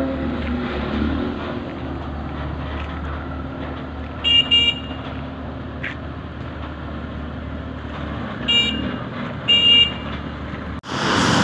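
Short high-pitched vehicle horn toots over a steady low engine rumble. There is a quick double toot a little before midway, then two single toots a second apart later on. Near the end the rumble drops out abruptly and a louder rushing noise takes over.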